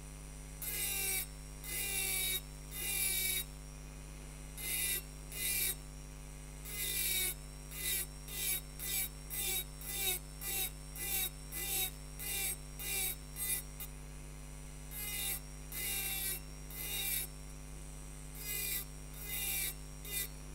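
A rotary hand-engraving tool's cone-shaped burr grinding into a wine glass in short scratchy strokes, each about half a second, repeated irregularly and at times once or twice a second, as petal shapes are cut by pressing deep and then lifting shallow. A steady low hum runs underneath.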